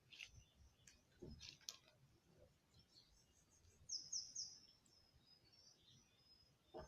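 Near silence with a few faint clicks, and a bird's quick three-note chirp, high and short, about four seconds in.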